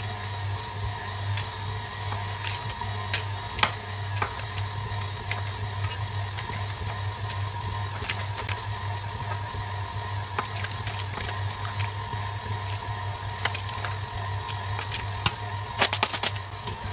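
KitchenAid stand mixer's motor running steadily, kneading yeast dough in its steel bowl, with a low hum and a steady whine. Scattered light clicks and knocks, with a quick run of them near the end.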